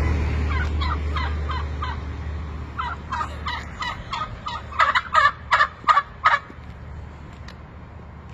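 Wild turkeys calling: a series of short, evenly spaced calls, with a louder run of about six calls between the fifth and sixth second. A low steady rumble sits beneath, loudest at the start.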